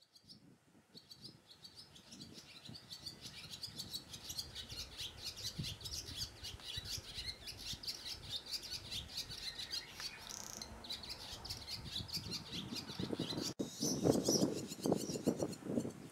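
Barn swallow twittering song: a long, fast run of high chirps and warbles. Near the end the sound cuts off abruptly, and a louder, lower and rougher sound follows, with a few high chirps.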